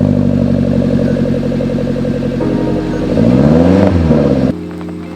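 An engine running, revved up and back down once about three seconds in, then dropping away near the end.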